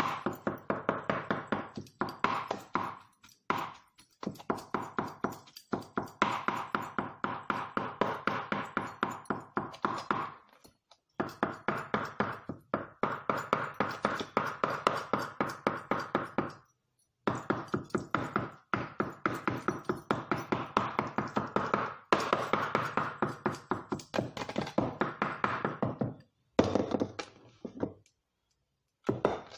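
Chef's knife chopping turkey mince on a wooden chopping board: fast runs of blade strikes on the board, several a second, broken by short pauses, the longest near the end.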